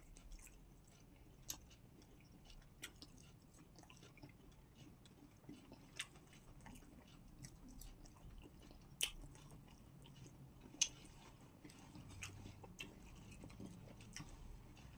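Faint chewing and mouth sounds of two people eating pounded yam with okra soup by hand, with scattered sharp clicks, the loudest about nine and eleven seconds in.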